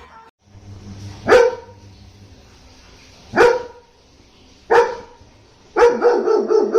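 A dog barking: three single barks a second or two apart, then from near the end a quick run of barks, about four a second.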